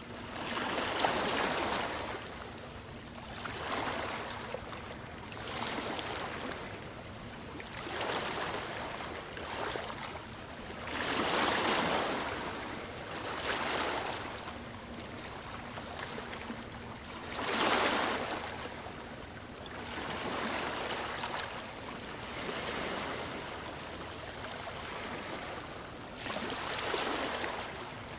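Ocean waves washing in and drawing back, a rushing hiss that swells every few seconds, with bigger surges about a second in, near the middle and near the end.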